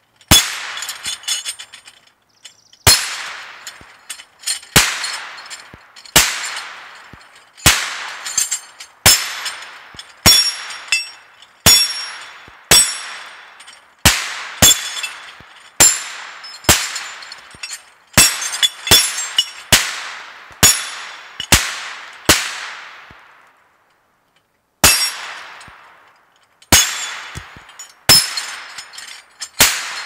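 Steady series of shots at small hanging steel plate targets, about one a second with a short pause about three quarters of the way through: each a sharp crack with a ringing metallic ping from the struck plate, dying away in a long echo.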